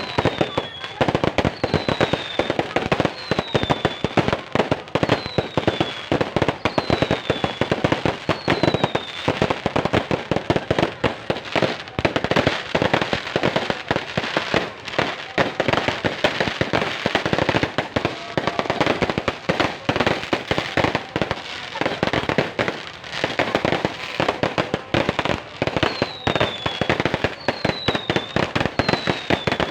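Fireworks and firecrackers going off in a dense, unbroken string of bangs and crackles, many a second. A short falling whistle repeats about every second and a half during the first nine seconds and again near the end.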